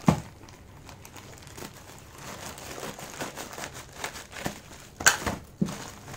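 Plastic courier mailer bag crinkling as it is handled and cut open with scissors, with a sharp thump at the start and a loud crackle about five seconds in.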